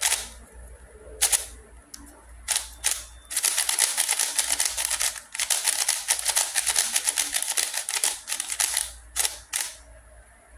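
Plastic layers of a VanDyke stickerless 3x3 speed cube clacking as they are turned. A few single turns come first, then a rapid run of clicking turns for about five seconds, and two last turns near the end.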